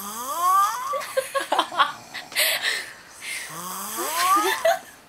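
A sleeping person's whistling snore: two rising, whistle-like tones, one at the start and one about three and a half seconds in, with breathy noise between.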